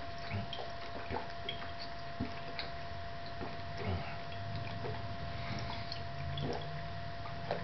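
A person drinking olive oil straight from a glass bottle: irregular soft wet swallows and liquid sounds, with small clicks, over a faint steady whine.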